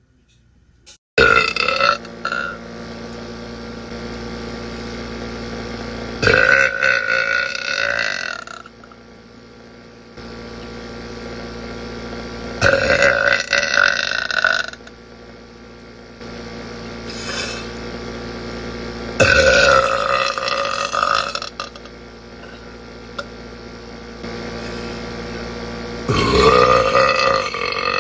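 A woman letting out five long, loud burps, each about two seconds long and coming roughly every six seconds, with a steady background hum between them.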